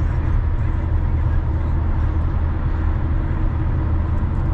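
A car driving, with a steady low rumble of engine and tyre noise and no distinct events.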